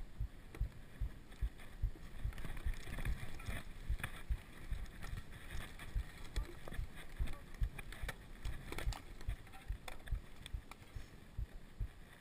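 Mountain bike ridden over a rough grassy trail: a steady run of low thumps, about three a second, as the bike and the camera on it jolt over the ground, with tyre and brush rustle and some wind on the microphone. A few sharp clicks and rattles from the bike stand out now and then.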